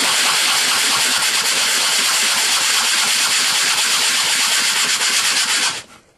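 A 3D-printed plastic gear being sanded: a loud, steady hiss that cuts off shortly before the end.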